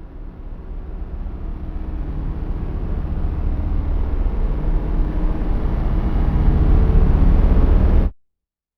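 Cinematic trailer sound effect: a deep rumbling riser that swells steadily louder, then cuts off abruptly about eight seconds in.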